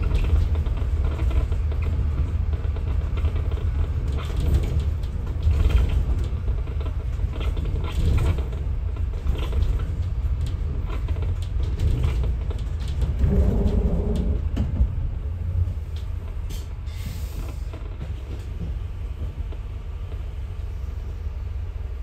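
Inside a moving city bus: a steady low rumble of engine and road, with rattles and creaks from the bus body. The rumble eases off somewhat in the last few seconds.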